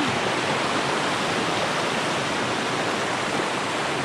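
Shallow rocky stream rushing over and between stones: a steady, even rush of water.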